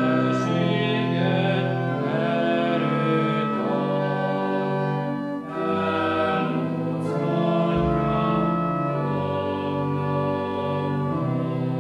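A church hymn sung by voices with organ accompaniment, slow sustained chords with a short break between phrases about halfway through.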